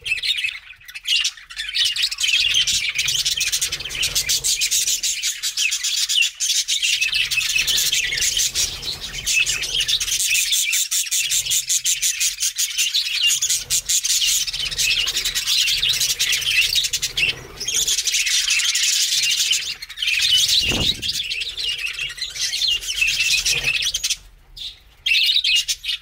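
A flock of budgerigars chattering and chirping continuously: a dense, high-pitched warble of many birds at once, with a few brief lulls.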